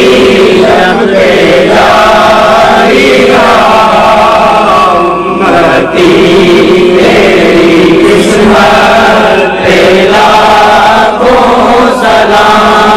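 Men's voices chanting an Urdu salam, a devotional salutation to the Prophet Muhammad, in long held phrases. A reciter sings into a microphone over a loudspeaker and the group joins him, with brief breaks between phrases.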